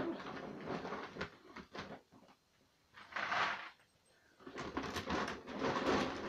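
A sack of dry dog feed being handled: irregular rustling and clattering, with a short louder rush of noise about three seconds in.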